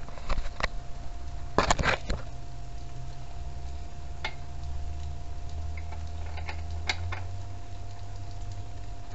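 Hand wrench working a fastener on a small engine mount: scattered metal clicks and clinks, with a quick cluster about two seconds in, over a steady low hum.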